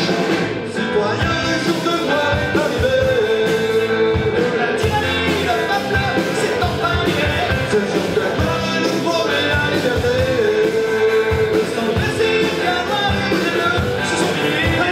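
Rock song with a sung lead vocal over guitar and a steady drum beat.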